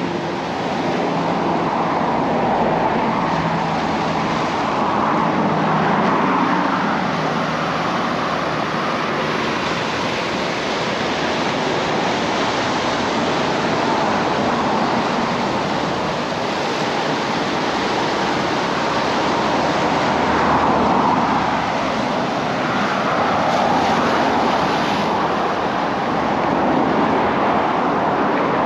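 Steady rushing wash of ocean surf, swelling and easing slowly every several seconds.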